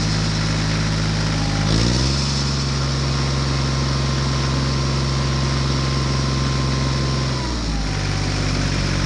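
Engine running steadily with a deep hum, stepping up to a higher speed about two seconds in and dropping back to the lower speed near the end.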